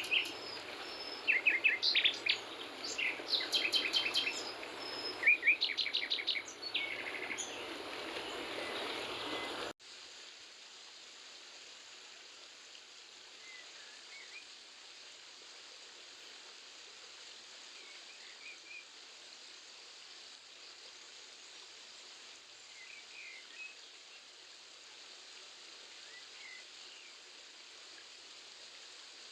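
Songbirds chirping and calling over a steady rush of stream water. About ten seconds in, the sound cuts abruptly to a quieter steady water sound with only a few faint, scattered chirps.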